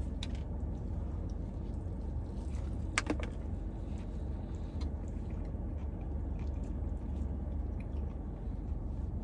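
Steady low hum inside a parked car's cabin, with faint sounds of a man chewing a mouthful of burger and one sharp click about three seconds in.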